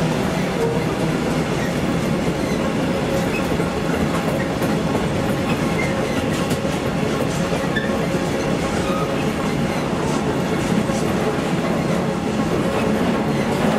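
Container freight train's wagons rolling past close by: a steady, continuous noise of wheels running on the rails, without let-up.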